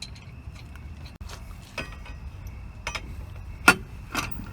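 Scattered metallic clicks and knocks from lug nuts and hand tools being handled while a wheel is bolted on, the loudest about three and a half seconds in, over a low steady rumble.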